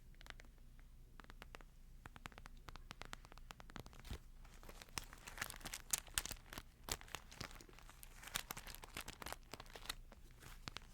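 Thin Bible paper being handled close to the microphone, crinkling and rustling in many small crackles that grow busier in the middle and ease off near the end.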